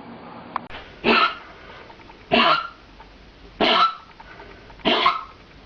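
A dog coughing four times in a steady series, each cough short and about a second and a half apart: the repeated cough that is a sign of kennel cough.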